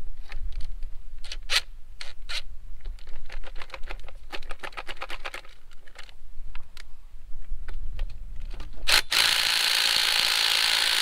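Wrench and ratchet work on the carburetor bolts of a 1943 Farmall H engine: scattered metal clicks and clinks, with a quick run of ratchet clicks in the middle. About nine seconds in, a loud steady whirring hiss starts and keeps going.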